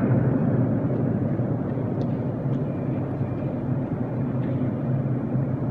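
Steady low rumble and hum of an underground railway station, easing slightly in level over the first couple of seconds, with a couple of faint ticks about two seconds in.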